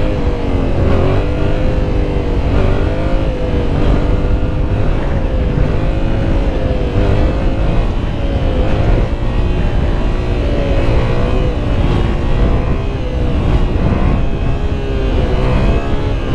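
Yamaha MT-07's parallel-twin (CP2) engine running hard under load at fairly steady revs, the pitch wavering with small rises and dips, over heavy wind rumble on the microphone.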